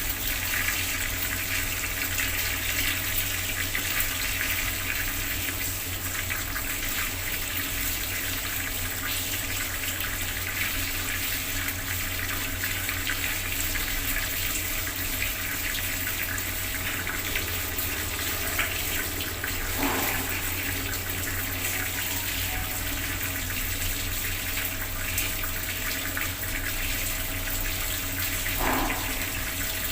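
Bathroom water tap left running, the water pouring in a steady, unbroken stream.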